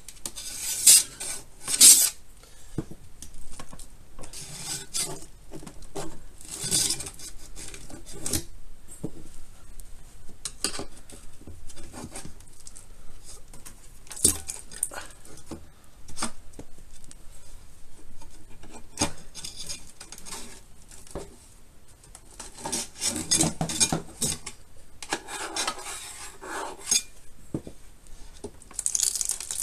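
A steel rule scraping and clinking against the seam of an electric scooter's deck and footplate, chipping away old sealant: irregular scrapes and taps, with sharp clicks about one and two seconds in and a busier run of scraping near the end.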